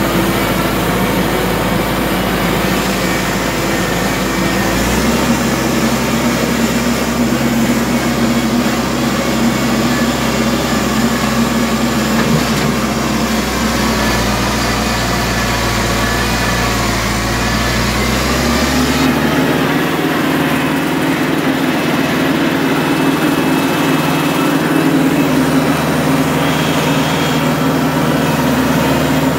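Compact tractor engine running steadily as the tractor travels, heard from the driver's seat, with the engine note changing about five seconds in and again past the middle.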